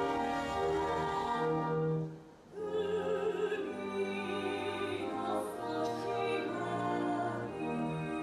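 Classical orchestral music with operatic singing, with a short break about two seconds in.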